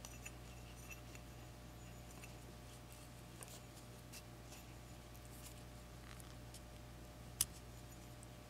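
Faint rustling and ticking of nylon paracord being handled and pulled tight into a knot, with one sharp click about seven seconds in, over a steady low hum.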